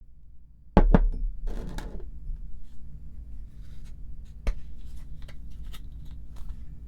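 Objects being handled on a tabletop for slime making: two sharp knocks about a second in, a brief rustle, another sharp tap near the middle, then small scattered clicks and rustles.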